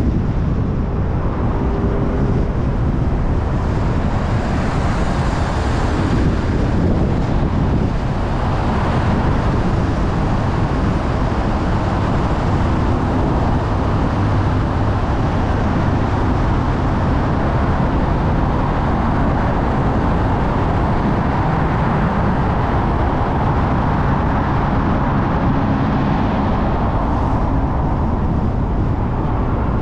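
Car driving through city streets and a road tunnel: steady engine and tyre noise with surrounding traffic. Right at the end a siren starts to rise.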